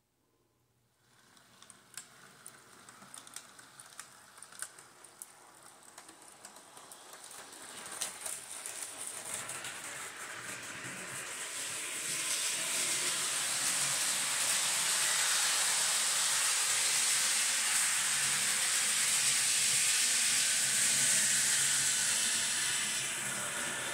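Model train running on the layout track: a steady whirring hiss with a few faint clicks. It starts faint and grows louder over the first dozen seconds as the power-pack throttle is turned up, then holds steady.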